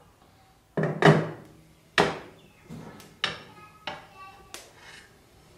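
Metal clanks and knocks as a lathe saddle is set down and shifted on the lathe bed ways. There are several sharp strikes, the loudest about a second in, each ringing briefly.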